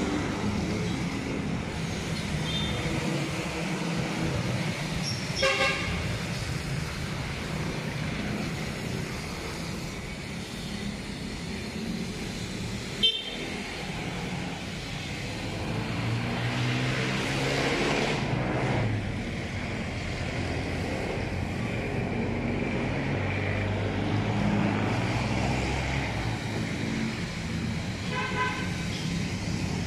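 Street traffic with vehicle engines running and a car horn sounding briefly about five seconds in and again near the end. A single sharp knock comes about midway, and a passing engine falls in pitch a little after.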